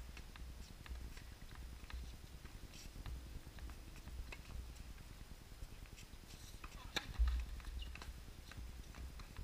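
Faint, irregular taps of a tennis ball bouncing on a hard court, with light footsteps, and one sharper click about seven seconds in. Low wind rumble buffets the microphone, strongest just after that click.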